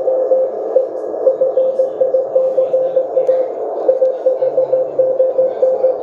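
Morse code tone from an Elecraft K1 transceiver, a single pitch keyed in quick dots and dashes over steady receiver hiss. The operator's hand is off the key, so this is the other station's signal being received.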